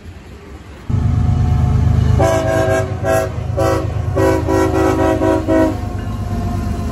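CSX diesel locomotive passing close with its engine running loud, sounding its air horn as a chord of several notes: three shorter blasts and then a long one. The engine rumble carries on after the horn stops.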